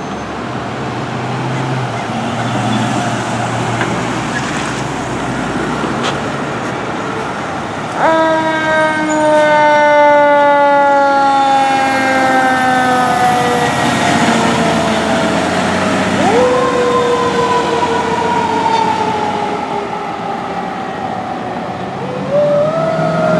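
Fire engine's siren: after about eight seconds of the truck's engine and road noise, it sweeps up quickly and then falls slowly in pitch, twice, and starts rising again near the end.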